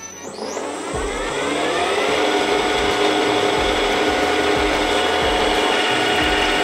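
Milling machine spindle starting up: a motor whine that rises in pitch for about two seconds, then runs steady at speed.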